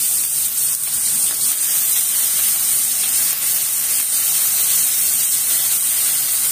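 Chopped onions sizzling in hot oil in a kadai with mustard seeds, curry leaves and turmeric: a loud, steady frying hiss.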